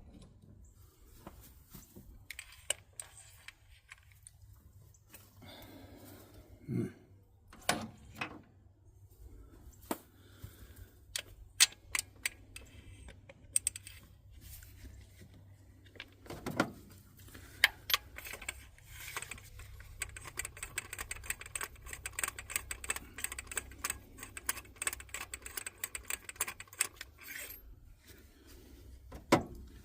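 Hand tools clicking and clattering on metal, with rapid runs of ratchet-like clicks in the second half and a few louder knocks, while the old spark plugs are being taken out of the engine.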